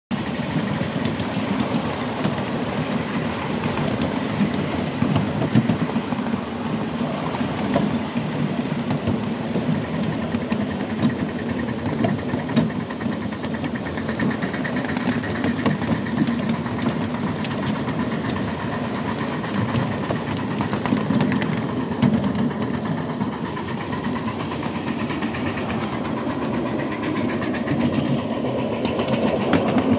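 Ride-on cars of a miniature live-steam railroad rolling along the track, heard from aboard: a steady rumble with a constant clatter of wheels on rail.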